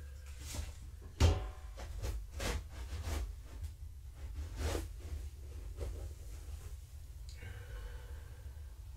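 A series of knocks and clatters, the loudest a sharp knock about a second in, over a low steady hum.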